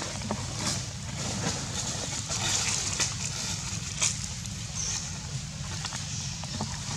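Outdoor ambience: a steady low rumble and hiss with scattered light clicks and rustles, the sharpest about four seconds in, as of small monkeys moving on dry leaves and handling fruit.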